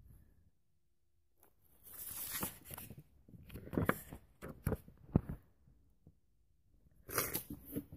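Rustling and handling noise with several sharp knocks as things are rummaged through. It comes in two spells: about two seconds in, and again briefly near the end.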